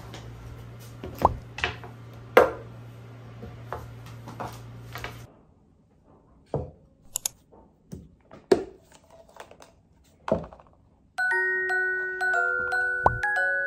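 A few knocks over a low steady hum, then small taps and clicks as a drinking glass and a plastic box of facial cotton pads are handled. About eleven seconds in, light background music with a bell-like mallet melody starts.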